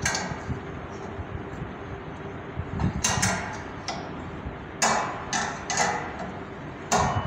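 Steel combination wrench loosening the nuts on a satellite dish's mount clamp: a handful of sharp metallic clicks as the spanner is fitted and turned, one about three seconds in and several close together near the end.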